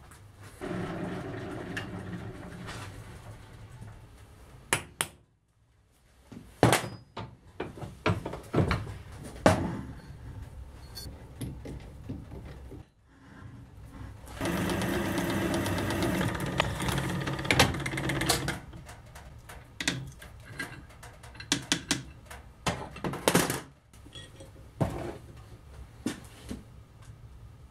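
Workshop sounds: an electric machine-tool motor runs steadily with a low hum for a few seconds near the start and again around the middle. Between and after these runs come sharp clanks and knocks of steel parts and tools being handled.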